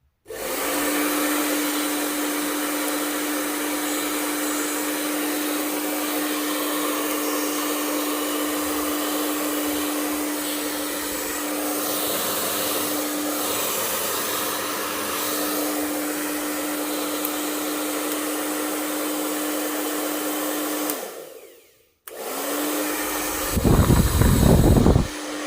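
Jooayou AC-motor hair dryer running, a steady rush of air over a steady hum. It winds down and stops about 21 seconds in, starts again a second later, and near the end a loud low rumble lasting about a second and a half rises over it.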